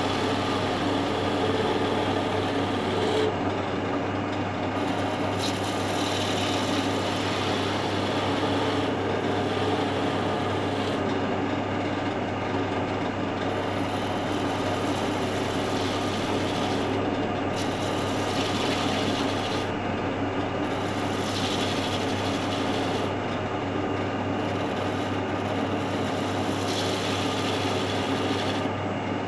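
Skew chisel cutting a spinning wooden spindle on a wood lathe: a steady scraping hiss of wood being shaved, over the constant hum of the lathe running.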